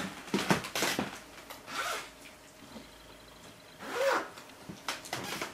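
A few short rustling, rubbing handling sounds, with quieter stretches between.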